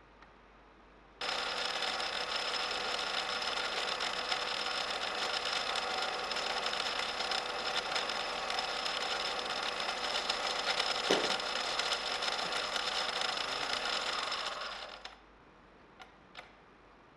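Angle grinder running at speed with a steady high whine, starting abruptly about a second in and dying away near the end, followed by two faint clicks.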